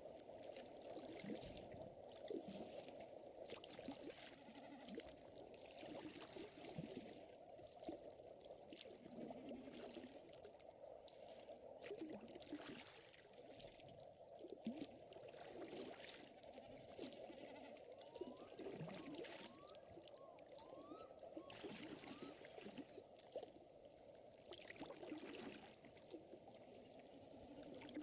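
Faint nature ambience: gentle trickling water with scattered soft crackles from a wood fire. A few short rising chirps come about two-thirds of the way through.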